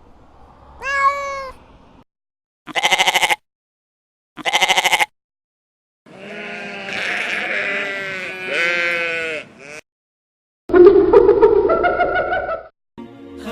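A series of separate animal calls: a meow about a second in, then two short quavering bleats, then several overlapping calls, and a louder, lower call near the end.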